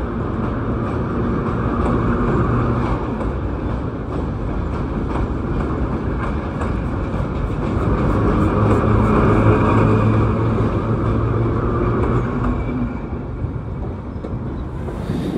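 A train of 1917 Lo-V subway cars passing close by on elevated track, with a steady rumble of wheels and cars that eases near the end as the last car goes by.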